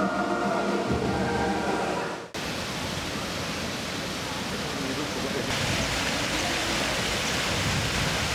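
Background music with held tones, cutting off about two seconds in to the steady rush of a small waterfall, recorded on the Canon 60D's built-in microphone. The hiss of the water turns brighter about halfway through.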